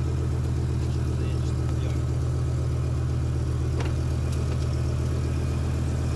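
BMW M5 E60's V10 engine idling steadily, with no revving.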